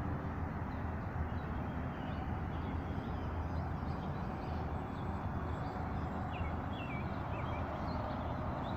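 Steady low rumble of a large airliner's jet engines, with a few small birds chirping briefly about six to eight seconds in.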